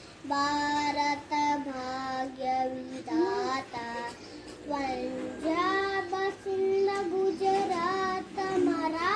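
A young boy singing solo, holding long notes with short pauses for breath between phrases.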